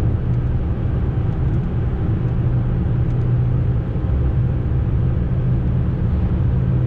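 Fiat Panda cruising in fifth gear, heard from inside the cabin: a steady low engine drone over even tyre and road noise.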